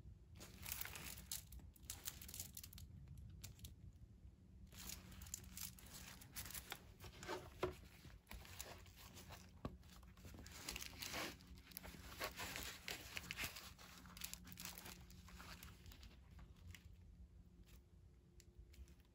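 Faint, close rustling and scraping as a cardboard juice box is handled and turned over by hands in leather gloves. It comes in irregular clusters, with a pause about four seconds in and a quieter stretch near the end.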